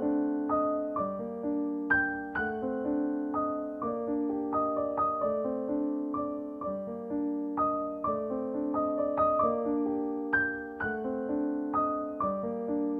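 Background music: a piano melody, its notes struck one after another and left to ring and die away.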